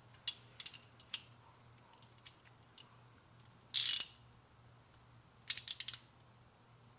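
Scattered metallic clicks and a short scrape, then a quick run of about six clicks from a socket wrench ratchet.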